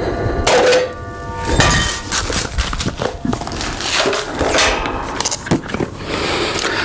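Metal clanks and knocks as cut steel pieces and tools are handled. One clank about half a second in rings on for about a second, and scattered knocks and shuffling follow.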